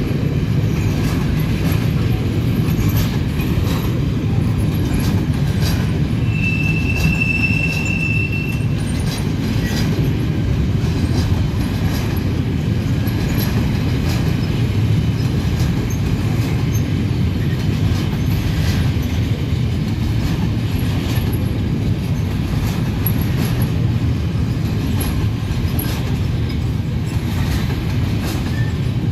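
Freight train of covered wagons rolling past close by: a steady rumble of steel wheels on rail with light clicks over the rail joints. A high wheel squeal comes in about six seconds in and holds for about two seconds.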